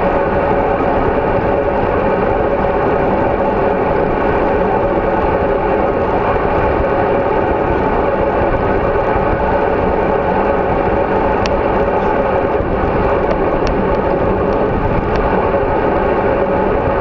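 Steady wind rush and road noise on a bicycle-mounted GoPro Hero3 riding at speed, loud and unbroken, with a couple of faint ticks a little past the middle.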